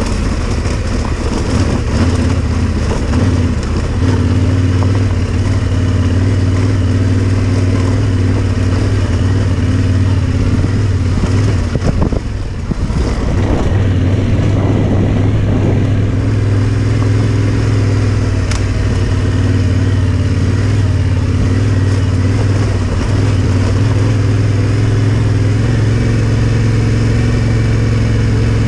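Yamaha Ténéré 700's parallel-twin engine running steadily under way on the trail. The engine note dips briefly about twelve seconds in, then picks up again.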